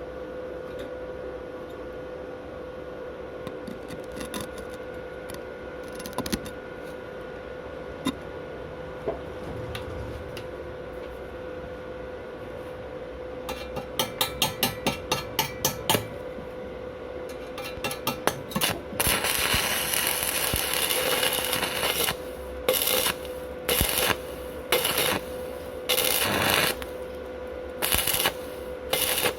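Stick (MMA) welding with 2.5 mm rutile electrodes on a Wert SWI 190 inverter welder. A steady hum with a few clicks gives way, about halfway through, to a quick run of about ten taps as the electrode is struck. The arc then crackles loudly, broken by several short pauses.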